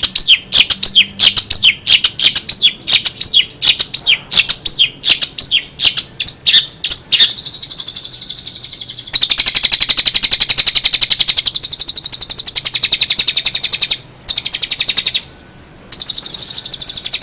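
A long-tailed shrike (cendet) singing, starting with a fast run of sharp, high chirps. From about nine seconds in it breaks into a long, rapid, buzzing trill, broken off briefly twice.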